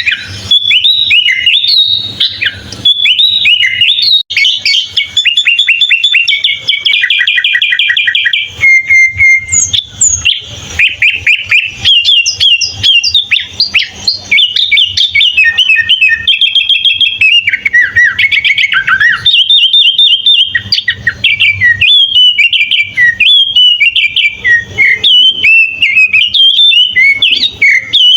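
Sooty-headed bulbul singing a long, varied song of quick whistled phrases, chirps and rapid trills, with a fast rattle of repeated notes and a short held whistle partway through.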